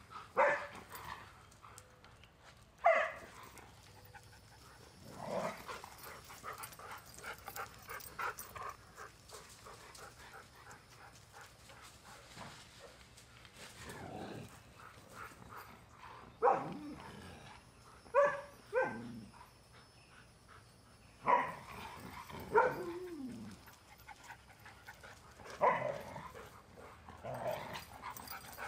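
Dogs in rough play, two Siberian huskies and a Doberman, giving about ten short, loud barks and yelps spread through, some sliding down in pitch.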